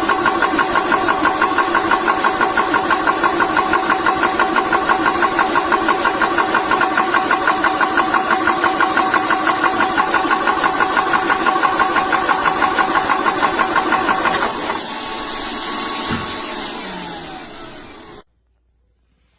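TOAUTO A1X PCP high-pressure air compressor running, its piston pumping in a rapid, even pulse. About fourteen seconds in the pumping stops and the motor's whine falls in pitch as it winds down, then the sound cuts off suddenly.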